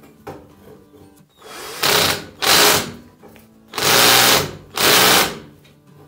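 Cordless drill-driver running in four short bursts, driving a needle-point screw to fix a steel tube anchor in place.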